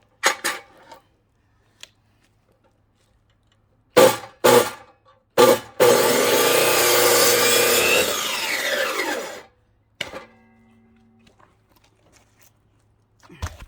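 Power saw cutting through a firewood log. Three short bursts come first, then about four seconds of steady cutting that ends with the blade spinning down in falling pitch. A single knock near the end.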